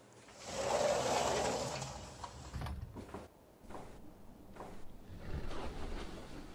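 A sliding glass door rolling along its track for about two seconds, then a run of light knocks and clicks as a door handle is worked.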